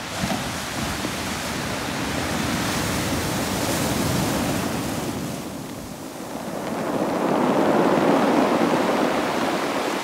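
Waves breaking on a shingle beach of rounded pebbles and washing up over the stones, with the slow suck and clatter of the water through the pebbles. The wash swells and fades, dips briefly about six seconds in, then surges louder as the next wave comes in.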